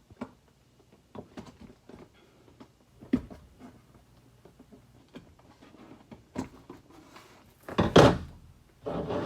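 Scattered clicks and knocks of a large cardboard box being handled and opened with scissors. A sharp knock comes about three seconds in, and a louder cluster of thumps about eight seconds in.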